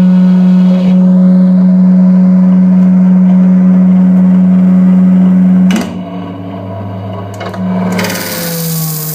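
Revox A77 reel-to-reel tape recorder played as an electroacoustic instrument: a loud, steady low drone with overtones that breaks off with a click about six seconds in, followed by quieter held tones, a burst of hiss and a falling tone near the end.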